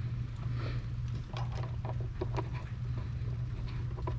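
Scattered light clicks and taps of a cable and rubber plug being handled and pushed up into the bottom of a plastic electrical connection box, over a steady low hum.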